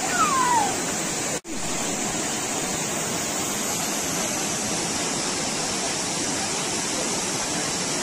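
Waterfall pouring: a steady, even rush of falling water, cut by a momentary break about a second and a half in.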